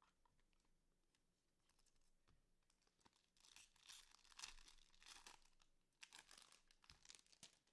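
Faint crinkling and tearing of a trading card pack wrapper being torn open, in two spells starting about three and six seconds in.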